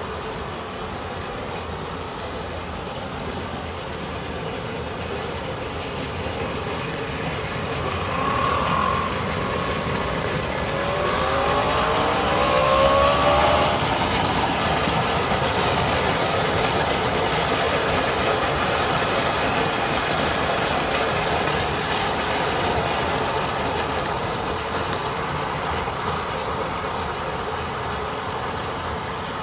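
Pool bench spa jets running, water churning and bubbling over a steady pump hum. It swells in the middle, where a few short wavering tones come in.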